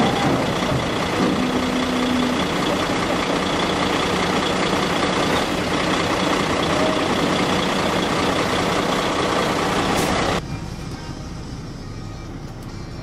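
Heavy diesel engine running steadily at close range. About ten seconds in the sound drops suddenly to a quieter, steady engine hum.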